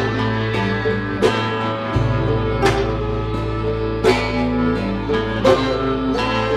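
Alt-country band playing an instrumental passage with no vocals: plucked-string instruments over a held low bass note, with a strong beat about every second and a half.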